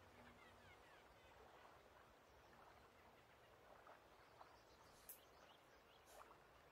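Faint lake ambience recording: scattered bird chirps and calls over a soft steady hiss, with two sharp clicks about five and six seconds in.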